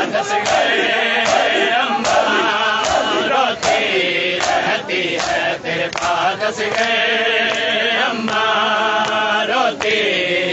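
Men's voices chanting a Shia nauha (mourning lament) together, with repeated sharp slaps of hands striking bare chests in matam.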